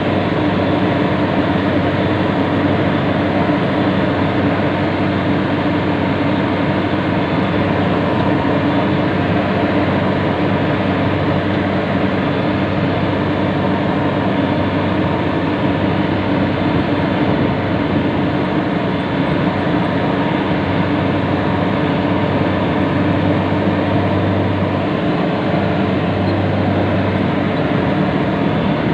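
Yanmar YH850 combine harvester's diesel engine running steadily as the machine travels, heard from on board.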